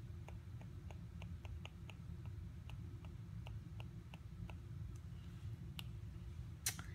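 Apple Pencil tip tapping on an iPad's glass screen while writing, an irregular run of small clicks a few times a second, with one louder click near the end.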